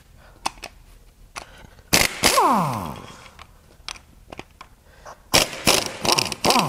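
Impact wrench hammering on a bolt in two bursts, a short one about two seconds in and a longer rattling one near the end, its motor winding down with a falling whine after each trigger release.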